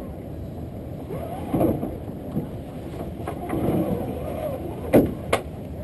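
Steady low rush of water along a small sailboat's hull, with wind on the microphone. Two sharp knocks come near the end, about a third of a second apart.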